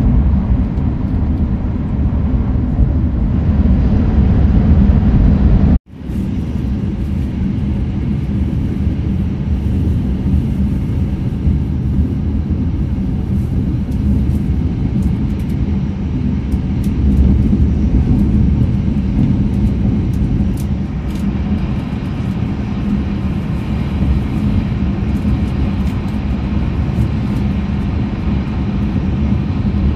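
Running noise of an E6 series Shinkansen heard inside the passenger car at speed: a steady, loud low rumble with a hum. It drops out for an instant about six seconds in.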